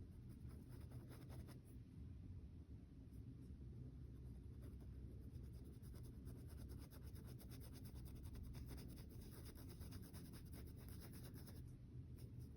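Faint, irregular scratching strokes of a painting tool on curtain fabric, over a low steady hum.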